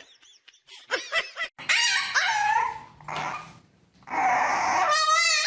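A dog whining and yelping in a few short pitched calls, then a longer wavering whine near the end.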